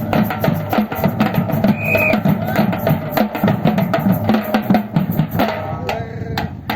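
Batucada-style percussion ensemble playing a fast, dense drum groove. About five and a half seconds in it thins out to a few scattered strikes.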